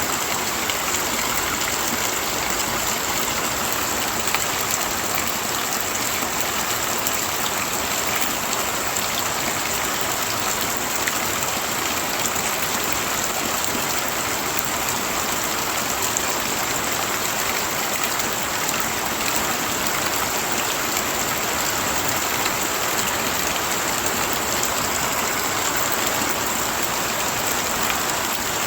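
Heavy rain falling steadily: a dense, even hiss of water.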